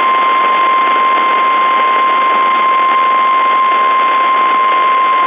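NOAA Weather Radio 1050 Hz warning alarm tone, a single loud, steady high tone held over radio static. It is the attention signal announcing that a severe weather warning follows.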